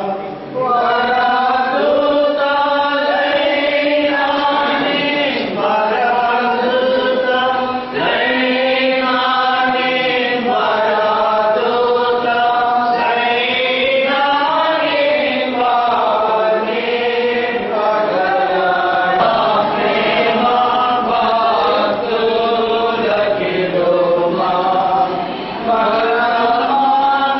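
A group of voices singing a slow devotional song together, with long held notes.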